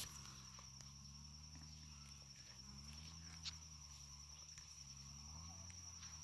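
Quiet ambience: a faint, steady, high-pitched insect trill over a low hum, with one small tick about three and a half seconds in.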